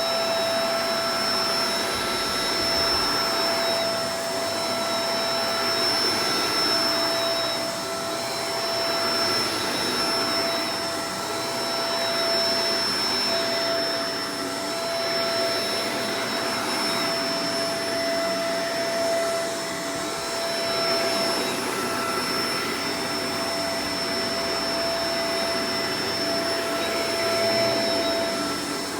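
Shark Professional Powered Lift-Away DLX (NV586) upright vacuum cleaner running: a steady motor whine over rushing air. It swells and eases in loudness every two to three seconds.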